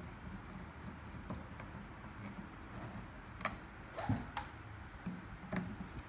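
Small sharp clicks and taps from a rowing machine's plastic fluid-resistance adjuster knob being worked with a screwdriver and turned by hand, a few isolated clicks in the second half over a low steady background noise.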